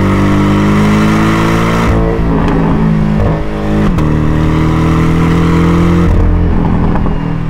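Porsche 718 Cayman GTS 2.5's turbocharged four-cylinder exhaust under hard driving in sport mode with the sport exhaust open. The engine note changes pitch sharply at gear changes about two, four and six seconds in, with a sharp crack at about four seconds.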